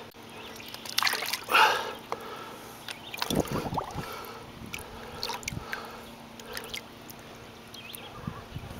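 Water splashing and dripping around a large muskie held in the lake by hand while it is readied for release, with louder splashes about a second in and again a few seconds later.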